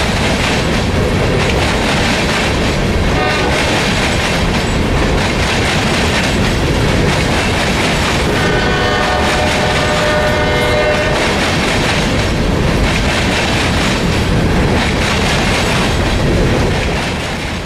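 Norfolk Southern freight train cars rolling past close by, a loud steady rumble of wheels over the rails with clickety-clack. A locomotive horn sounds briefly about three seconds in and again for about three seconds from around eight seconds in.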